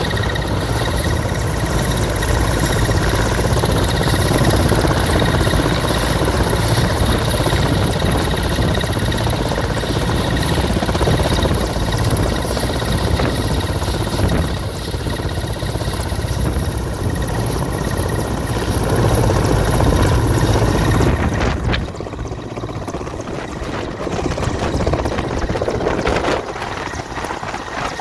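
Mil Mi-17 helicopter running at full rotor speed on the ground, heavy rotor noise under a steady high turbine whine from its twin turboshaft engines. The high whine fades about three quarters of the way through, and it lifts off near the end.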